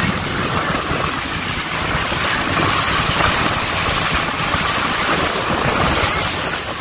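A motorboat under way: steady wind noise on the microphone over water rushing past the hull and the engine running.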